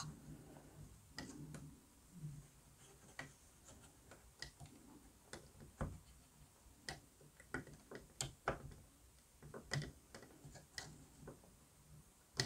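Faint, irregular small clicks and taps of thin laser-cut wooden parts being handled and pressed into place on a model ship's hull framing, a click every second or so.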